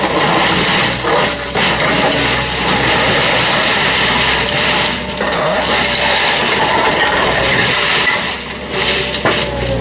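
Road-rail excavator's engine running under load while its sleeper-changer attachment drags a concrete sleeper through the track ballast, the stones crunching and clattering.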